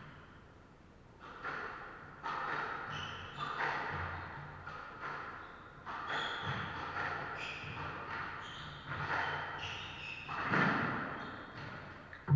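Squash rally: the ball cracking off rackets and the court walls about once a second, ringing in the enclosed court, with short squeaks of shoes on the wooden floor. The hits begin about a second in and stop shortly before the end, the loudest near the end.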